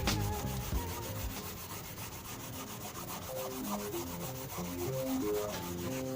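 A cloth rubbing back and forth over car body paint, polishing out scratches with toothpaste as the abrasive. Faint background music with short melody notes plays underneath.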